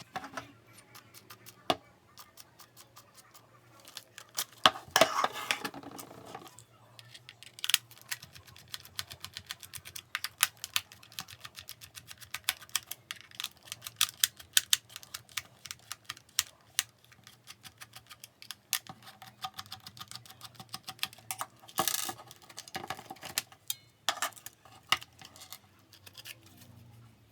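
Many small sharp clicks and taps of hard objects being handled, with a short stretch of scraping and rustling about five seconds in and again just after twenty seconds.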